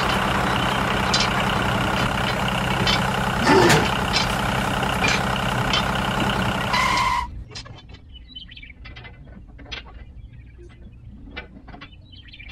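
Steady tractor-engine running sound as the model tractor pulls a spiked-roller cultivator across sand. It cuts off suddenly about seven seconds in, and faint clicks and rattles follow as the cultivator's parts are handled.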